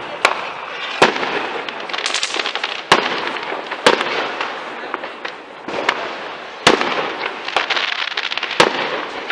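Aerial fireworks bursting overhead: a string of about eight sharp bangs at uneven intervals, with crackling between them.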